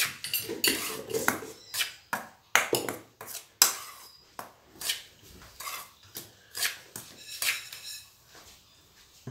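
Steel spoon scraping and clinking against a black non-stick kadai while stirring dry wheat-flour mix, in irregular strokes about two a second.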